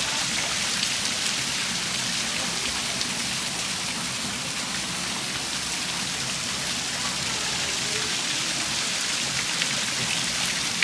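Heavy rain falling steadily on a rooftop, with runoff pouring off the edge of a sloped roof: an even hiss with faint scattered drop ticks.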